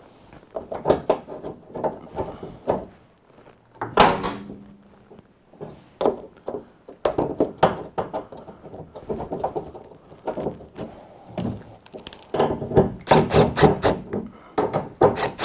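Clicks and knocks of metal parts and a hand socket tool as a Silverado tailgate handle is lined up and bolted back into the tailgate, with one sharp knock about four seconds in and a run of quick clicks near the end as a bolt is run in, not yet tightened.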